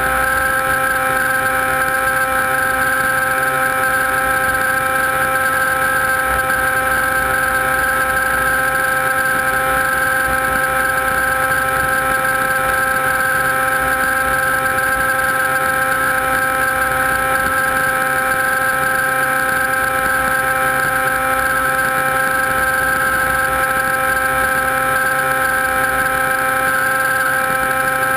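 Electric motors and propellers of a small camera drone, heard from the camera on board: a steady whine made of several held tones.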